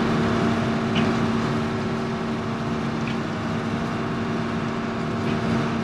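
Combine harvester running steadily while harvesting corn: a constant drone of engine and threshing machinery with a steady hum at one pitch.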